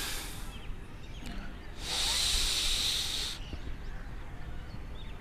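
Two deep, hissing breaths heard close on a clip-on microphone. The first ends about half a second in; the second, a long breath in while stretching upward, starts about two seconds in and lasts about a second and a half.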